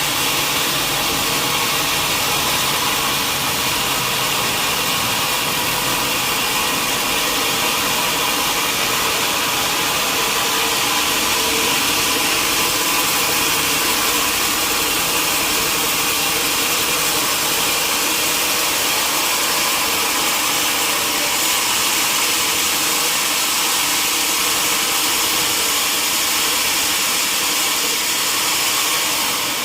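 Sawmill machinery running steadily, a constant loud mechanical drone with no clear change in load.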